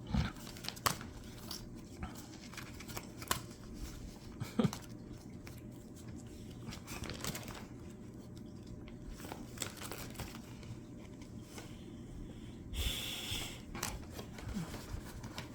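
Trading cards being handled and sorted: faint scattered clicks and taps, with a brief crinkling rustle near the end.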